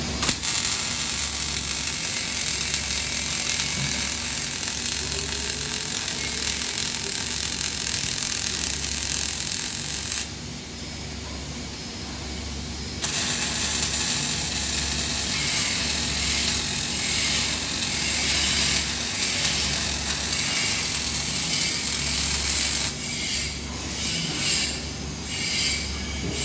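Robotic wire-fed arc welding: the steady hiss of the welding arc, which stops for about three seconds near the middle and then resumes, breaking into short bursts near the end. A low hum pulses on and off about once a second underneath.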